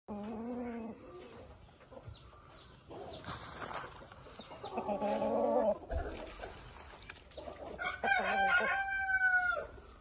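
Chickens calling: shorter calls at the start and around halfway, then a rooster crowing near the end, one long call that drops in pitch as it ends.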